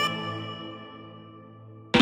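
Background music: the last held notes of a melodic track ring on and fade away, and a loud electronic dance track cuts in at the very end.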